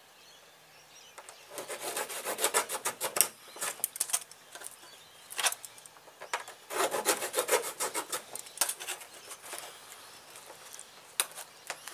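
Small hand saw blade cutting through a crack in a fibreglass car front bumper, in three bouts of quick back-and-forth strokes with short pauses between. The cut frees the cracked panel so it can be lined back up before the repair.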